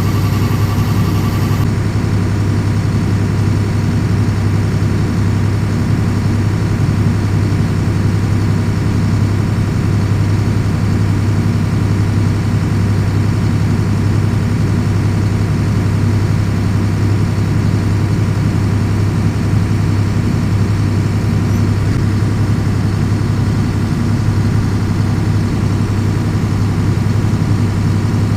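Heavy farm machinery diesel engine running steadily under load during harvest unloading, a constant low drone. A higher whine and hiss cut off about two seconds in.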